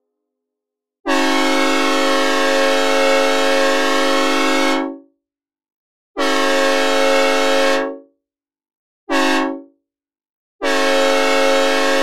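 Synthesized recreation of a Nathan M5 five-chime train horn sounding a chord in four blasts: two long, one short, then a long one still sounding at the end. This is the long-long-short-long grade-crossing signal.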